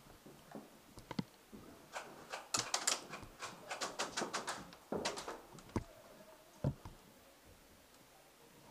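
A quick run of sharp clicks, several a second, from about two to five seconds in, followed by a couple of single knocks.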